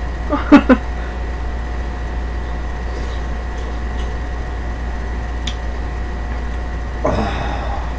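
Steady low hum with two faint steady tones above it. A short snatch of voice comes about half a second in, a faint click in the middle, and a brief breathy voice sound near the end.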